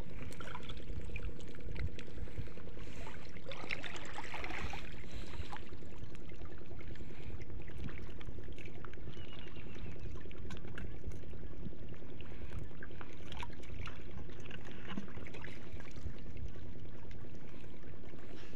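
Seawater trickling and splashing over a steady low hum.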